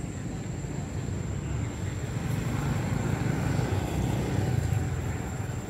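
A motor vehicle passing: a low rumble that swells about three seconds in, peaks, then eases off near the end.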